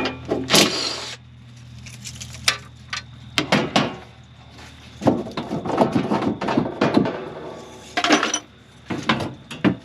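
Clattering and knocking of hard objects being handled and moved about, a string of short knocks and rattles. A low steady hum runs through the first second.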